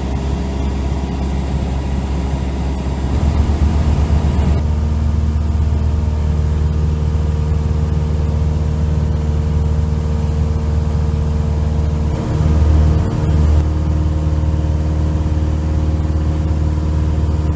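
Light aircraft's engine and propeller droning steadily, heard from inside the cabin in flight. The drone changes character about four and a half seconds in, and it swells briefly about two-thirds of the way through.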